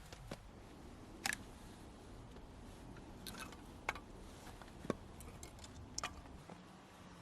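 A few scattered light knocks and clicks, objects being handled, over a faint steady hiss. The loudest knocks come about a second in and just before five seconds.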